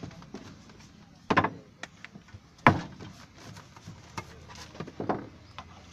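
Sharp knocks and lighter taps of hand work at a samosa stall, as pastry cones are filled from a steel bowl of potato filling. There are three loud knocks, about a second and a half in, near three seconds and about five seconds in, with small clicks between them.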